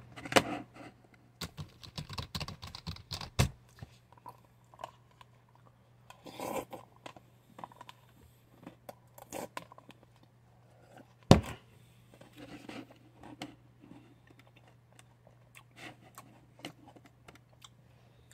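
Handling noise from fingers tapping and rubbing on the recording phone close to its microphone: scattered clicks and scratches, with one sharp, much louder knock about eleven seconds in, over a steady low hum.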